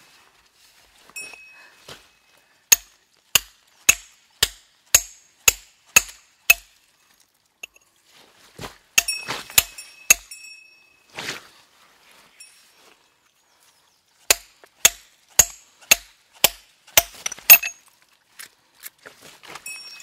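Steel rock hammer striking a rock to break it open, in two runs of about seven sharp, ringing blows each, roughly two a second. Some scraping and shuffling noise comes between the runs.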